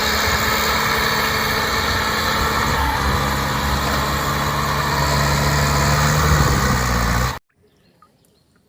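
Bulldozer engine sound effect: a heavy engine running steadily with a low note and hiss on top. Its pitch shifts about three seconds in, and it cuts off abruptly about seven seconds in.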